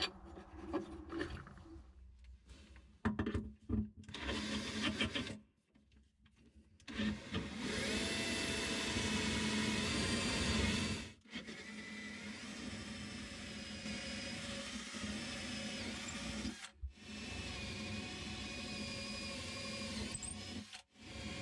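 Electric drill boring bolt holes through a stainless chain plate's holes into a sailboat's deck, running with a steady whine in long stretches and stopping briefly a few times. The first few seconds hold only short starts and handling knocks.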